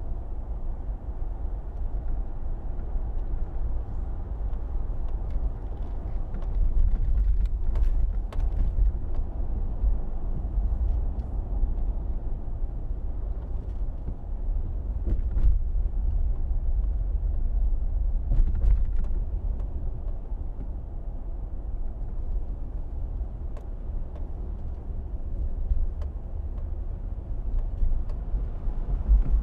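SUV driving on a local street, heard as a steady low rumble of engine and road noise, with a few short knocks and rattles at several points.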